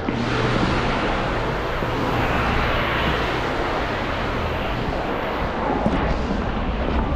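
Steady vehicle noise: a low engine hum under an even, broad rushing noise.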